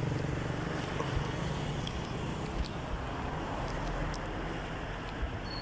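Steady street background noise: a low rumble and hiss of traffic and air, with a few faint clicks.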